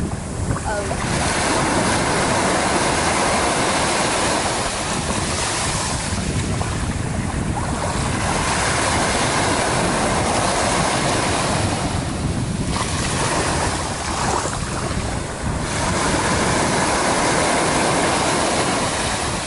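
Steady rushing of wind and sea water, with wind buffeting the microphone.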